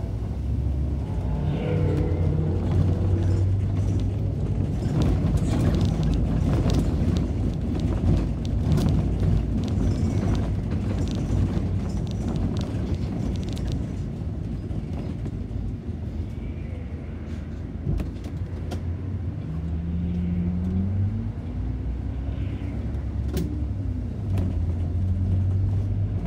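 City bus driving, heard from on board: steady engine and road rumble with light rattles. The engine note climbs about twenty seconds in as the bus speeds up.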